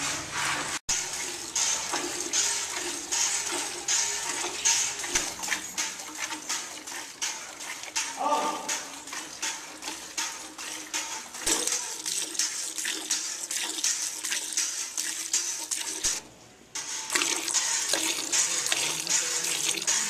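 Milk squirting from a cow's teats into a metal bucket during hand milking: a quick steady rhythm of hissing spurts landing in the milk already in the pail.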